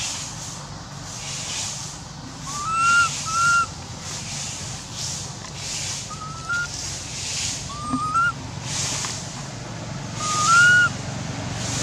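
Baby long-tailed macaque crying: several short, high, whistle-like squeals that rise at the end, some in quick pairs, over a steady pulsing hiss.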